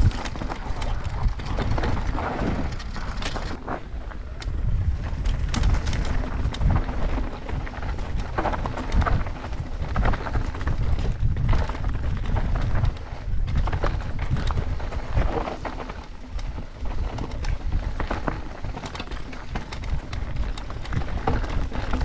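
Full-suspension mountain bike ridden fast down a rough, rocky dirt trail: tyres crunching over rocks and roots, with constant rattles and knocks from the bike and a heavy rumble on the body-mounted action camera's microphone.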